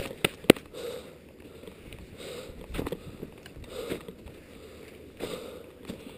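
Irregular crunching and scraping of a climber's steps and gear in snow on a mountain ridge, with two sharp clicks near the start and further knocks and scrapes every second or so.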